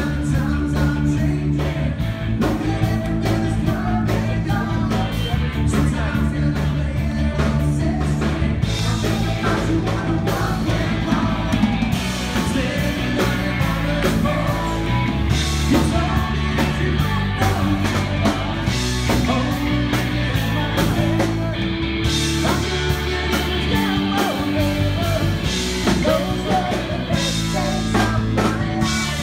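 Live band playing upbeat rock and roll with a singer, electric guitar and keyboard, loud and continuous.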